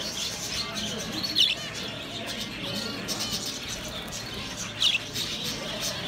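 Budgerigars chirping: two sharp, high chirps stand out, about a second and a half in and again near five seconds, with fainter chirps between over a steady background hubbub.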